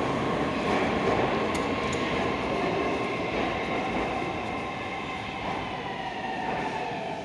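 Metro train moving along the platform: a continuous rumble with a steady electric whine from its traction motors. The whine drifts slightly lower and the sound fades a little in the second half as the train slows.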